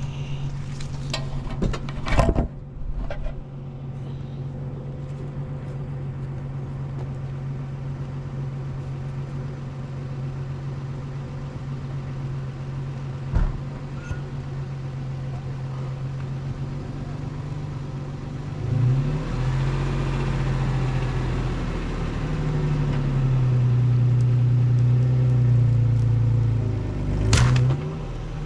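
Four-wheel drive's engine idling steadily, then revved and labouring under load for several seconds while it pulls on a rope tied to a hung-up tree. A few sharp knocks, the loudest near the end.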